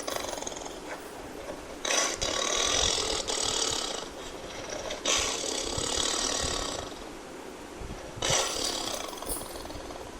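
Tiger growling in three long bursts without a clear pitch: one about two seconds in, one at about five seconds, and a shorter one near the end.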